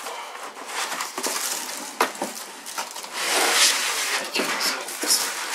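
Foam packing blocks scraping and squeaking against a cardboard box as a bagged small desktop computer is worked loose and lifted out, with plastic rustling and a few knocks. There is a louder, longer scrape about three seconds in as the unit comes up out of the box.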